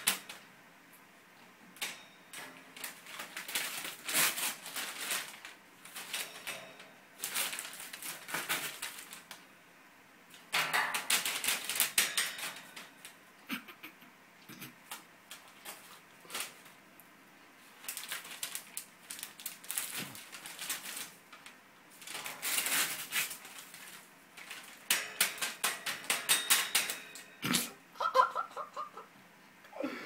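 Eclectus parrot tearing and crumpling a glossy paper magazine with its beak: repeated bursts of crackling paper rustle and ripping, each a second or two long, with short pauses between.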